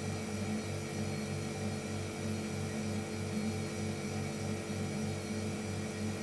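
Refrigerator compressor motor running with a steady hum and a low throb that pulses about four times a second.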